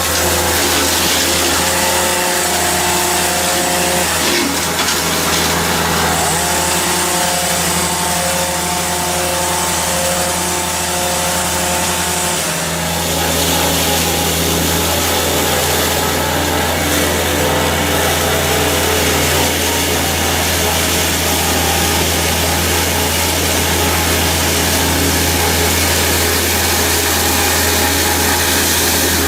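Heavy machinery running steadily: a constant low engine drone under dense mechanical noise, with a few steady higher tones that come and go.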